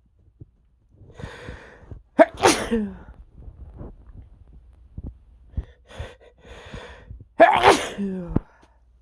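A man sneezing twice from allergies, about five seconds apart. Each sneeze comes after a drawn-in breath and ends with the voice falling in pitch.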